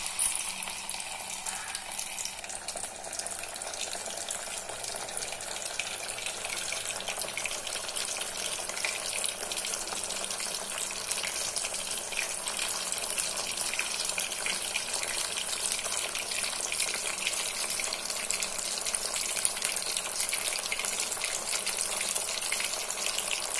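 Masala-coated katla fish steak frying in hot oil in a kadai: a steady sizzling hiss with fine crackling throughout.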